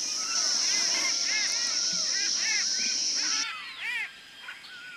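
Outdoor forest ambience: a steady high insect drone with many short, repeated arched bird chirps over it. The insect drone cuts off about three and a half seconds in, leaving a few last chirps.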